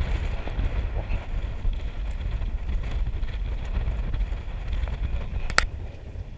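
Wind buffeting the microphone in a small open boat: a steady low rumble, with one sharp click about five and a half seconds in.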